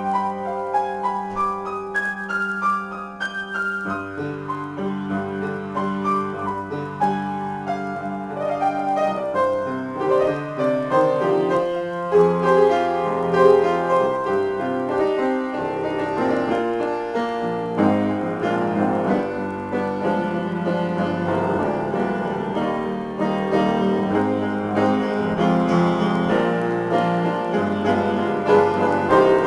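Solo piano playing an improvisation. Low notes are held in the first few seconds, then the playing turns busier with many overlapping notes.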